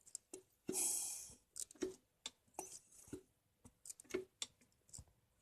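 Scattered light clicks and taps of handling, with a short rustling hiss about a second in.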